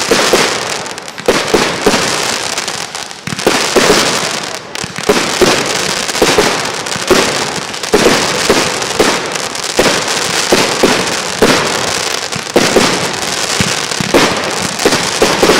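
Fireworks display: a rapid string of bangs, about one or two a second, over continuous crackling.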